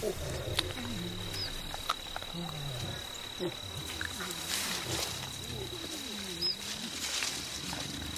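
Feeding mountain gorillas making low, wavering rumbling grunts, the contented calls they give while eating, with scattered short snaps of chewed or broken vegetation. A thin steady high whine runs behind them.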